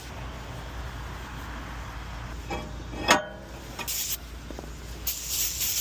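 Brake-job work sounds over a steady low rumble: a sharp metal clink that rings briefly about three seconds in, then short hissing spray bursts, one just under a second later and a longer one near the end.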